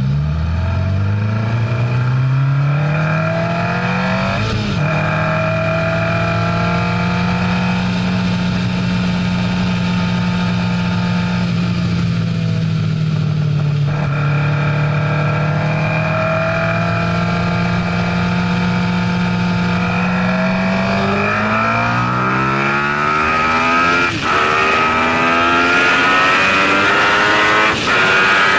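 Onboard sound of an MV Agusta superbike engine pulling through the gears. The revs rise and drop at a gear change about four and a half seconds in, then hold a steady note for a long stretch. The bike then accelerates hard with two quick upshifts near the end, and wind rush grows as the speed climbs.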